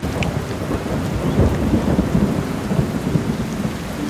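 Thunderstorm: thunder rumbling over steady rain, loudest in the middle and easing off near the end.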